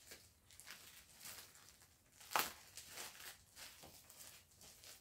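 Faint rustling and soft taps of balls of yarn being handled and stacked into shelf cubbies, with one sharp knock about halfway through.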